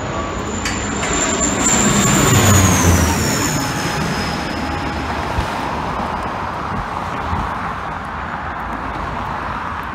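Dash 8 turboprop airliner passing low overhead on final approach: its propeller and engine noise swells to a peak about two to three seconds in, with a high whine that drops in pitch as it goes over, then fades into the steady noise of highway traffic.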